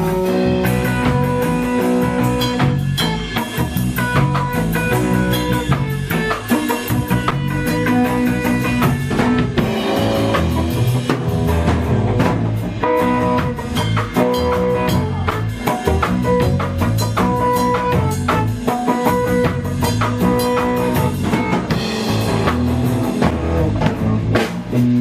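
A live band playing an instrumental break without vocals: guitar melody over a drum kit keeping a steady beat, with a moving bass line underneath.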